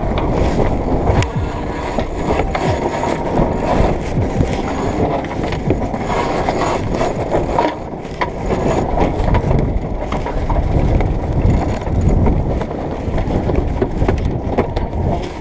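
Heavy wind buffeting the camera microphone aboard a sailing yacht under way, with many short clicks and knocks of sheets and winch being worked during a tack.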